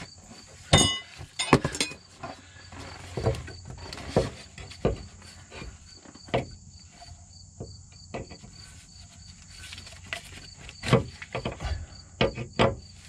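Irregular knocks and clanks of hand work under a van's rear suspension: a bottle jack's handle being worked, then a SumoSpring helper spring being fitted up against the frame. An insect chirps in an even, rapid pulse throughout.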